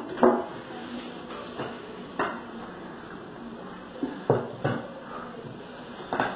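Metal cake pan and plate knocking and clattering together as a cake is turned out of the pan onto the plate: about five separate knocks, the loudest just after the start and about four seconds in.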